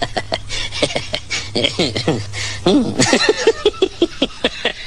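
Laughter: chuckling and snickering in quick pulses, with falling, drawn-out laughs about two seconds in and a rapid run of short laughs after that.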